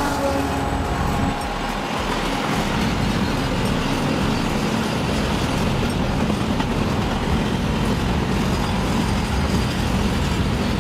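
Freight train passing: a steady rumble and rattle of wheels on rails, with the end of its horn dying away in the first half second.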